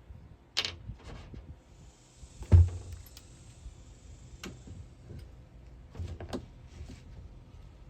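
Scattered knocks, clicks and clatters of a wooden framing strip being handled and worked into place against the van's body. The loudest is a single thump about two and a half seconds in.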